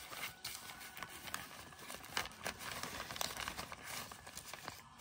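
Black plastic mulch film crinkling and rustling in irregular small crackles as hands press soil around a tomato seedling planted through it.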